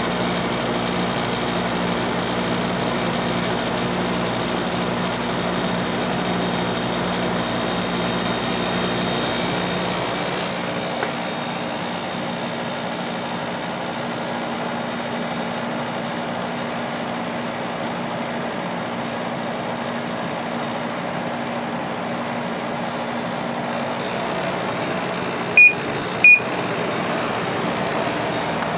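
2007 Samsung window air conditioner running just after its rotary compressor has started, with its fan blowing and a steady hum. The low hum drops away about ten seconds in. Near the end come two short, high beeps.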